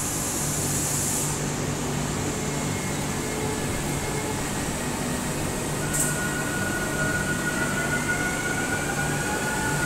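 Rodalies electric commuter train at an underground platform, its equipment humming steadily. About six seconds in there is a short hiss, then an electric motor whine that rises in pitch as the train starts to pull away.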